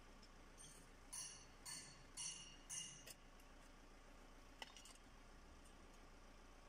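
Faint metallic clinks from a drum-brake shoe and its hardware being handled and worked loose on the backing plate: about five short clinks in the first three seconds, then a single sharp click a little past the middle.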